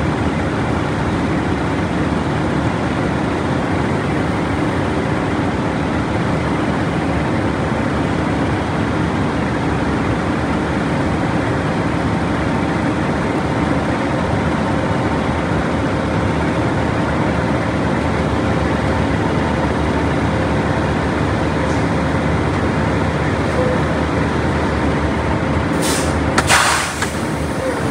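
Heavy truck diesel engine idling steadily. Two short, sharp hisses come near the end.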